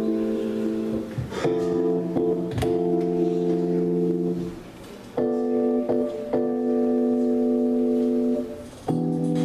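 Instrumental backing track playing slow, held chords that change about every four seconds, with a brief drop in loudness before each new chord.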